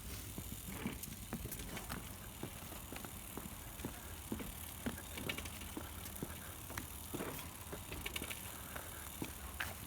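Footsteps walking along an outdoor path: a run of irregular short crunches and clicks over a steady low rumble.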